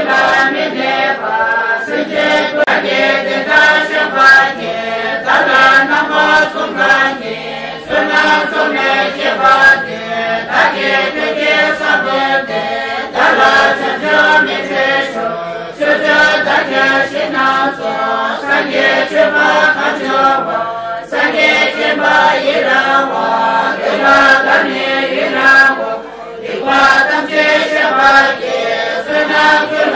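A congregation of Tibetan Buddhists chanting prayers together from their texts, many voices reciting in unison in a steady rhythmic chant, with brief breaks every few seconds.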